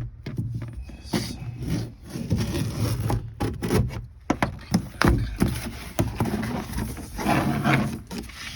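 Irregular scraping, cracking and clicking of hand work cutting an access hole in the van's plastic inner door panel.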